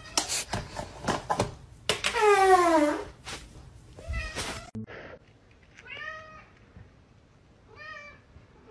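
Plastic litter box clattering and scraping as it is handled, then a loud drawn-out cat meow that falls in pitch for about a second. Later come two short, quieter meows from another cat.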